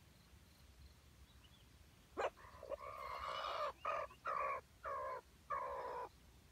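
Junglefowl rooster crowing once, starting about two seconds in: a long first phrase followed by four shorter notes that fall in pitch, about four seconds in all.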